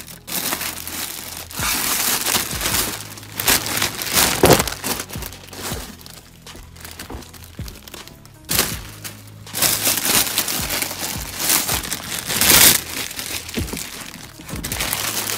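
Packaging and clothing crinkling and rustling in irregular bursts as hoodies are pulled out of a box and handled, over quiet background music.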